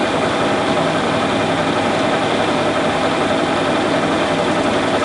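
Monarch 612 engine lathe running under power, driven by its 20-horsepower motor: a steady, even machine hum that does not change in pace. To the owner it sounds as if it is running just fine.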